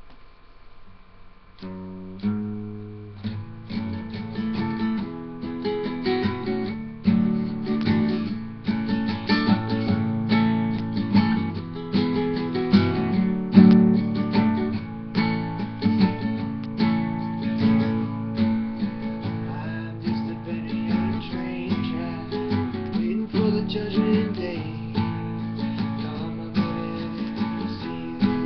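Acoustic guitar played solo, picked and strummed chords with single plucked notes, starting about two seconds in and going on steadily.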